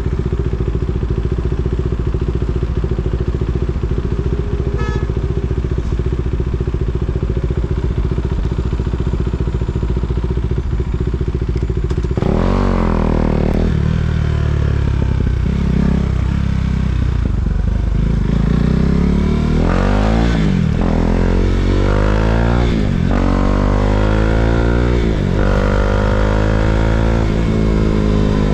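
KTM Duke 390's single-cylinder engine idling steadily. About twelve seconds in, it revs and the bike pulls away, the pitch climbing and dropping over several gear changes as it accelerates.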